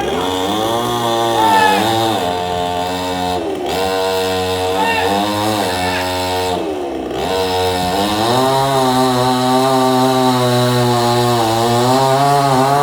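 Two-stroke chainsaw engine running. Its pitch dips and climbs back several times, sags low around the middle, then rises and holds at high speed through the second half with small wavers.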